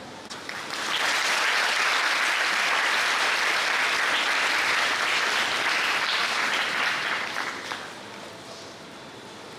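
Audience applauding, starting about a second in, holding steady for about six seconds, then dying away.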